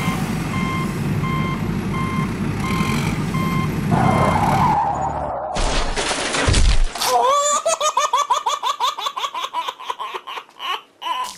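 Truck reversing beeper, about one and a half beeps a second, over a steady low engine rumble; after about five seconds it gives way to a loud burst of noise lasting about a second and a half. Then comes a quick run of laughter, a giggling cartoon sound effect.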